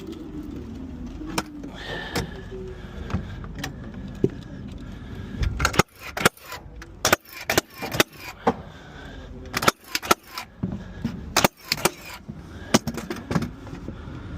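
Irregular sharp knocks and metallic clinks and rattles from hand work on a timber-framed wall, coming thick and fast from about six seconds in.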